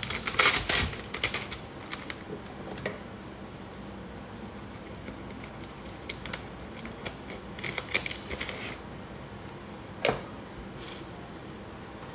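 Sheet of clear plastic transfer tape crinkling and crackling as it is handled, loudest in the first second. Scissors then cut through it, with another burst of crackling about eight seconds in and a single sharp click about ten seconds in.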